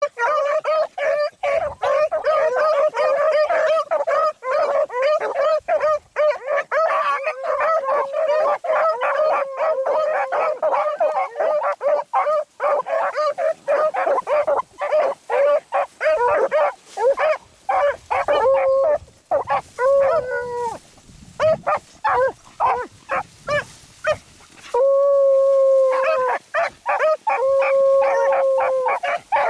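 A pack of beagles baying as they run a rabbit's scent trail, with rapid overlapping barks from several hounds at once. Near the end the barking thins out, and two long drawn-out bays follow.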